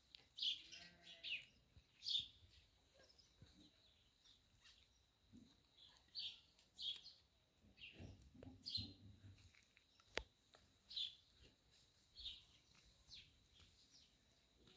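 Small birds chirping: short high chirps come every second or so over a quiet background, with a single sharp click about ten seconds in.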